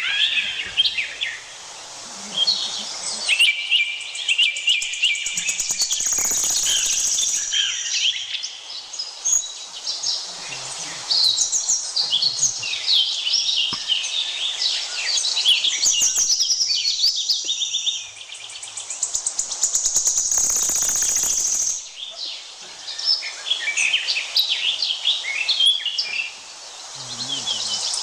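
Forest birds chirping and calling together, with quick high trills throughout. Twice a high steady buzz lasts about a second and a half.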